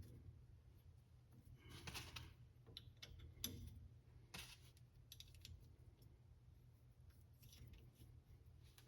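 Faint scattered clicks and a few short scrapes of metal parts being handled as a repaired sway bar link with a new bushing is fitted onto the strut, over a steady low hum.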